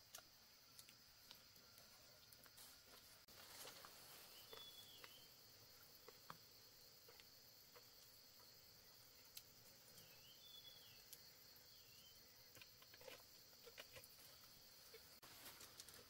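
Near silence with a faint steady high insect buzz, such as crickets. A few faint short high chirps come about four seconds in and again around ten to twelve seconds, and there are scattered small clicks.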